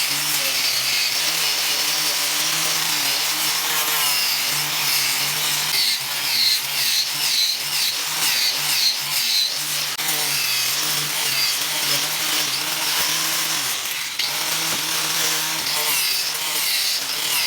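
Small electric power tool running continuously against wood, its motor hum wavering slightly in pitch under a steady rasping hiss.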